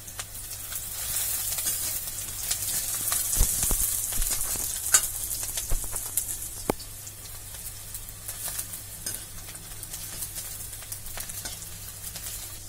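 Chopped onions sizzling in hot oil in a wok while being stirred with a metal spatula, which knocks and scrapes against the pan a few times. The sizzle is loudest in the first few seconds and then eases off.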